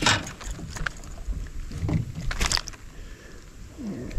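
Handling noise in an aluminum jon boat as a white crappie is held in hand: a few sharp knocks and clicks, the strongest at the very start, with light rustling between them. A brief low sound slides down in pitch near the end.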